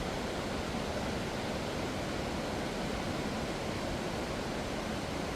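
Falls of Foyers waterfall: a steady, even rush of falling water.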